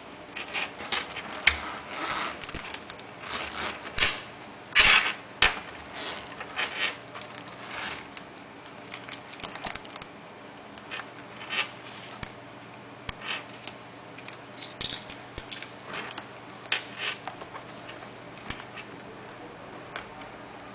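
Handling noise from a zippered leather clutch bag being opened and rummaged through: irregular rustles, scrapes and small taps, loudest about four to five and a half seconds in.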